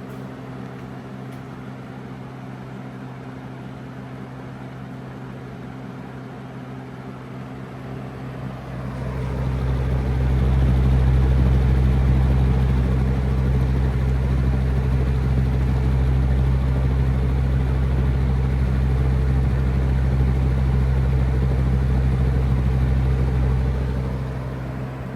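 Lasko 3733 20-inch box fan running on medium, its dusty, unoiled motor giving a steady hum. About a third of the way in, a heavy low rumble builds and holds until near the end as the fan shakes badly.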